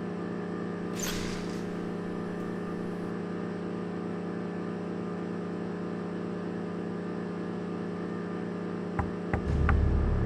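Steady low hum with a faint regular pulse running through it, a brief hiss about a second in, then a few sharp clicks and a low rumble coming in near the end.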